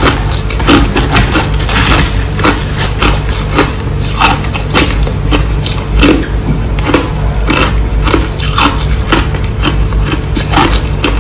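Crushed ice being chewed close to the microphone: a steady run of loud, crackling crunches, about two a second.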